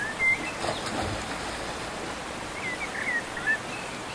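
Outdoor ambience of steadily running water, with a small bird giving a few short chirps, once just after the start and in a quick series past the middle.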